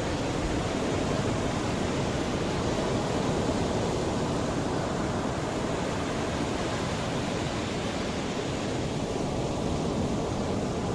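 Mediterranean Sea waves washing in, a steady rush of surf that swells slightly and eases.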